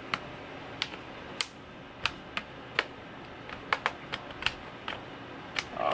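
Plastic retaining tabs of a Lenovo ThinkPad T470's front LCD bezel snapping loose as a pry tool works along the bezel edge: about a dozen sharp, irregular clicks.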